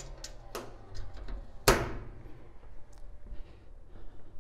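Sandblast cabinet door being worked: a few light metal latch clicks, then one loud metal clunk a little under two seconds in, over a faint low hum.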